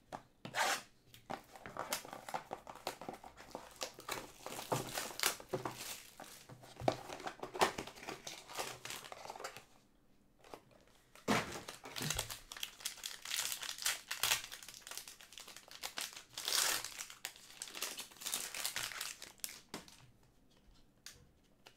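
Plastic wrap crinkling and tearing off a Panini Prizm trading card box, then the cardboard box being opened and cards handled, as irregular crackling. There is a short lull about ten seconds in, followed by a dull knock.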